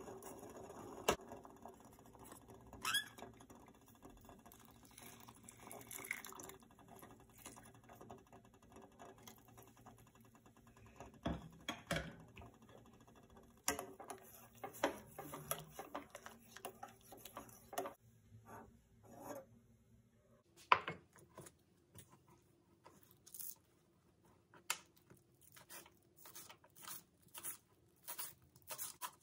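Soup simmering in a stainless steel pot, with a silicone spatula stirring it and knocking against the pot now and then. About two-thirds through, the sound changes to a kitchen knife chopping on a plastic cutting board: a run of sharp, fairly even taps.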